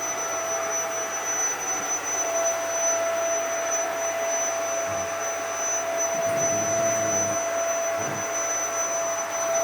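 Vacuum cleaner running steadily: an even rushing noise with a constant whine on top.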